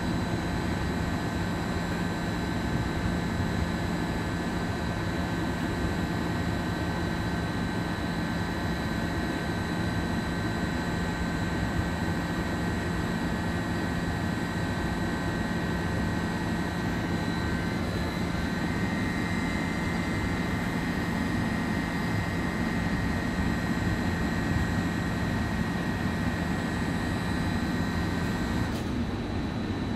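British Rail Class 73 electro-diesel locomotive standing with its machinery running: a steady drone under a high whine. Near the end the whine stops and the sound changes.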